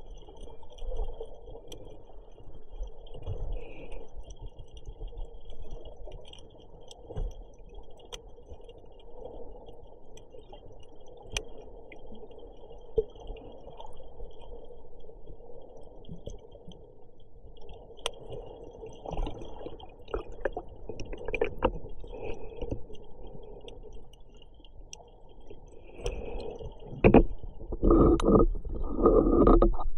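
Muffled underwater sound picked up by a camera in a shallow sea cave: a low, steady wash of water with scattered sharp clicks. Near the end it turns louder and choppier.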